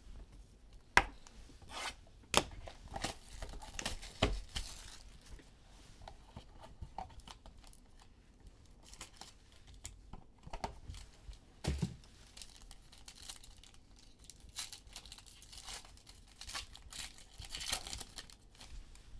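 Plastic wrapping and card packs being torn open and crinkled by hand as a box of basketball trading cards is opened, with scattered sharp clicks and crackles, the loudest about a second in.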